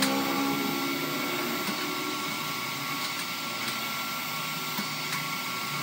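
Electric hydraulic power pack (motor, pump and tank) running steadily, with a sharp click right at the start and a few faint clicks later.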